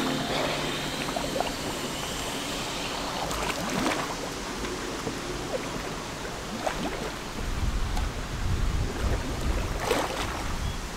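Lake water splashing and lapping as a scuba diver goes under, then his exhaled air bubbles breaking the surface in a few short bursts. A low rumble comes in about two-thirds of the way through.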